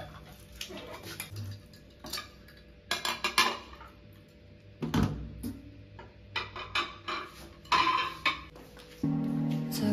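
Ceramic plates clinking and knocking against each other and the stainless steel sink while they are washed up, in irregular clusters of clatter. Soft background music comes in near the end.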